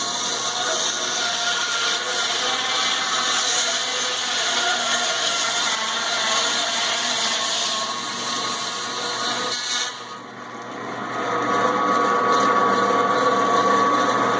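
Electric meat band saw (Stark) running and cutting a leg of lamb, a steady motor-and-blade noise. About ten seconds in, the sound changes: the hiss falls away and a steadier whine carries on.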